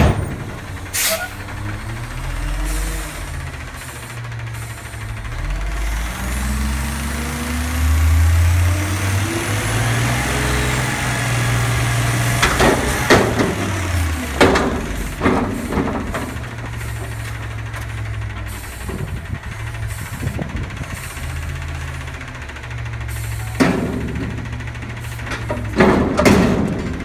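Front-loader garbage truck's diesel engine revving to drive the hydraulic lift arms as they raise a commercial recycling dumpster up over the cab. Loud metal bangs come as the upturned container is shaken and knocked to empty it: several about halfway through and more near the end.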